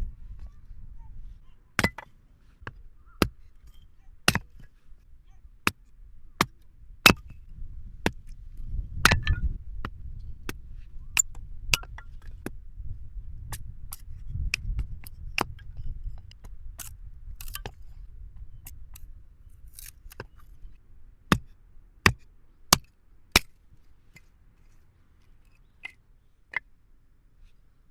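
Hatchet chopping wood: sharp, single strikes at irregular intervals of about one to two seconds, with a low rumble of handling in between, loudest in the middle.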